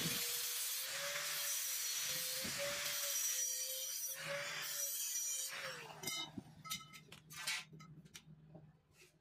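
Angle grinder with a cut-off disc cutting through steel tubing: a steady whine over a harsh hiss. About six seconds in the grinder is switched off and its whine falls away, followed by scattered clinks and knocks of the metal tube being moved.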